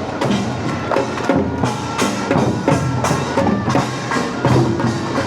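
Music with a steady beat of sharp percussive hits and pitched notes.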